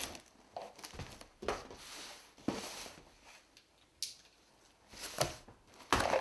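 Cardboard shipping boxes being handled on a table: moved off a stack and set down, giving a few scattered knocks and scrapes of cardboard, with a sharper scrape near the end as a box cutter goes to the packing tape.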